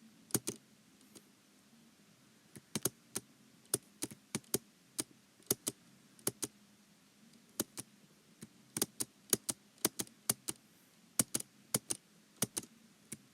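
Computer keyboard keys being typed: irregular runs of sharp clicks with short pauses between them, the first long pause lasting about two seconds near the start.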